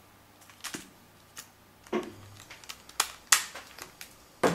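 A series of sharp plastic clicks and small knocks from a compact digital camera being handled, its card compartment door opened and the SD card taken out of its slot. The loudest clicks come in the last second and a half.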